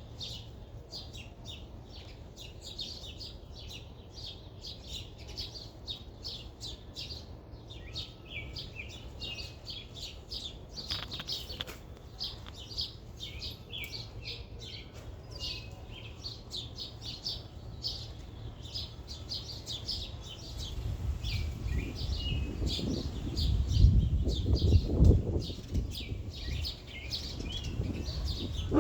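Many small birds chirping continuously, a dense overlapping chorus of short chirps. About two-thirds of the way through, a low rumbling noise joins in, loudest near the end.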